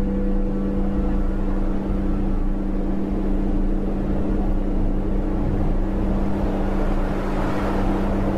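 Steady ambient drone of sustained low synthesized tones under a wash of hiss, the unbroken background track of a subliminal audio; the wash swells a little near the end.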